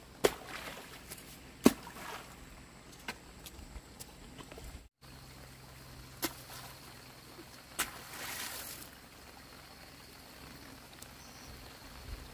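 Bundles of rice seedlings tossed into a flooded rice paddy, landing in the muddy water with several sharp splashes a second or more apart.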